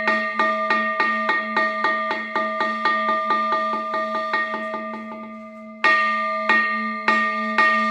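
A Buddhist temple bell struck over and over, its ringing tone sustained beneath the strokes. The strokes speed up and grow softer, then one loud stroke a little before the end starts a slower series, about one stroke every half second.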